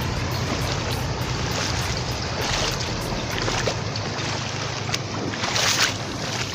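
Floodwater rushing fast across a road, with splashing as a person wades through it; louder splashes about two and a half and five and a half seconds in.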